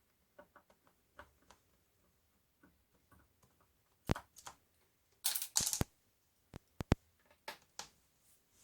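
Small clicks and light taps from handling a laptop's case and parts: scattered soft ticks at first, a denser run of clicks a little past halfway, then a few sharp single clicks.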